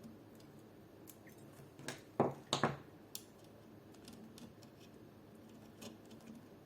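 Small sharp clicks and scrapes of a tiny screw being worked back into place with small pliers, with a louder cluster of clicks and scraping about two to three seconds in.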